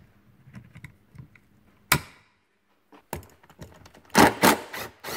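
Sharp clicks and metallic rattling of a hex driver seating in and turning out a heat-loosened, thread-locked screw on an RC truck's metal chassis plate. One loud click comes about two seconds in, and the clicking grows denser in the last two seconds.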